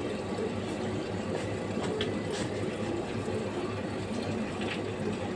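Water vending machine dispensing: its pump runs with a steady hum while water pours into a large plastic jug.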